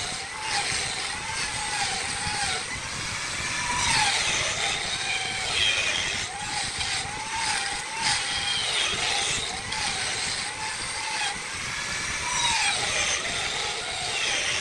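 Handheld angle grinder shaping a wooden spindle on the lathe. Its motor whine sags and recovers over and over as the disc is pressed into the wood, over a steady grinding hiss.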